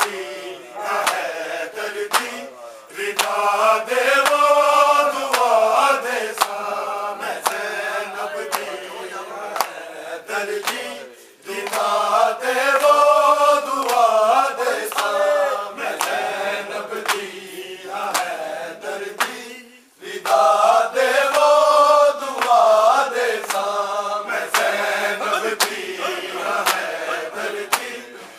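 A group of men chanting a nauha, a Shia mourning lament, in long phrases that rise and fall. Regular sharp slaps of matam, hands beating on chests, run under the singing.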